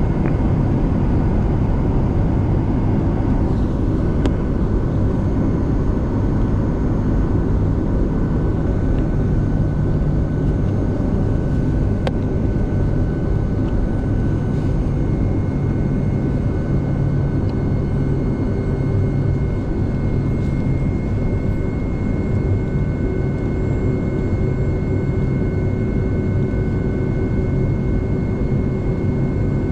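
Boeing 757-200 airliner's jet engines heard from inside the cabin, running steadily at low thrust with a deep rumble and a thin steady whine, as the plane lines up on the runway before takeoff.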